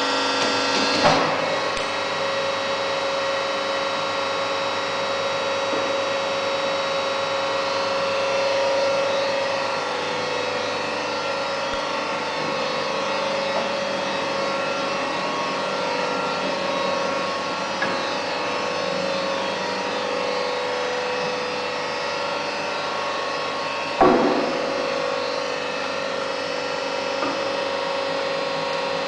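Double decoiler's hydraulic power unit running with a steady hum made of many fixed tones. Two sharp clunks stand out, one about a second in and one near the end.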